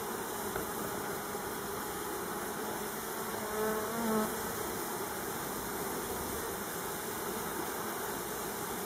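Honeybees buzzing, with one bee buzzing louder and closer for about a second near the middle, over a steady background hiss.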